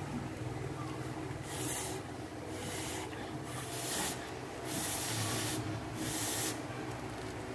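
A person blowing on a cob of freshly boiled corn to cool it: about five short puffs of breath, each a soft hiss lasting half a second to a second.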